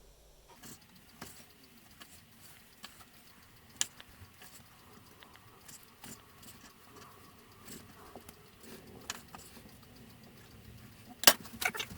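Knife cutting raw pork into cubes on a cutting board: scattered soft taps, then a quick run of louder knocks near the end.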